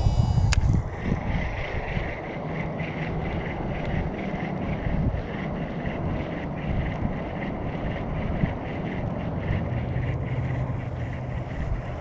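Wind buffeting the microphone, a low, uneven rumble throughout, with one sharp click about half a second in. Under it, a faint steady whir of a baitcasting reel being wound in.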